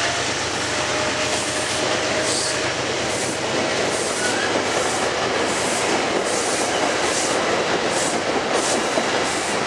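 Metro-North electric multiple-unit commuter train rolling past close by, a steady rushing rail noise with a rhythmic clatter about twice a second as the cars go by.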